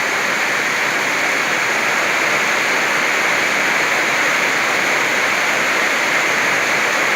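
Heavy rain pouring down in a summer storm, a steady loud hiss.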